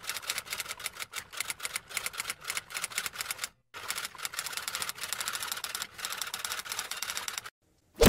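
Typewriter sound effect: a rapid run of mechanical keystroke clicks, with a short break about three and a half seconds in, stopping shortly before the end.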